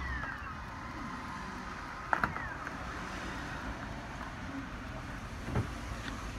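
Torqeedo Cruise 2.0 RL electric outboard motor winding down: its whine falls in pitch and fades in the first half-second. A sharp click comes about two seconds in and a softer thump near the end, over a steady background hum.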